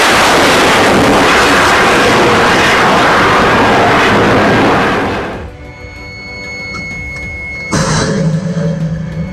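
Loud blast roar from military live fire, holding for about five seconds and then cutting off, followed near the end by a second, shorter burst. Background music runs underneath.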